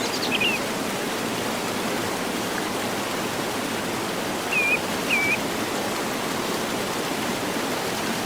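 Waterfall water rushing steadily, with a few short bird chirps right at the start and twice more around the middle.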